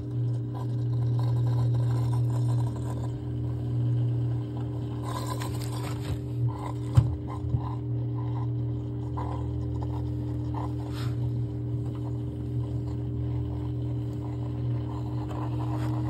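Samsung front-loading washing machine spinning with a steady hum, working again now that its clogged drain pump filter has been cleared of coins and lint. Light scrapes and taps come and go about five to eleven seconds in.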